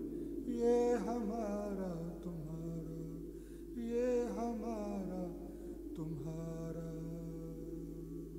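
Closing music: a voice chanting in wavering, melismatic phrases over a steady low drone. The phrases come about half a second in, about four seconds in, and as a longer held line from about six seconds in.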